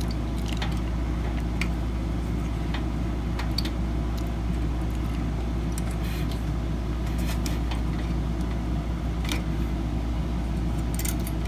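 Steady low background hum with scattered light clicks and taps from small parts being handled and fitted while a cooling fan is mounted on a heat sink.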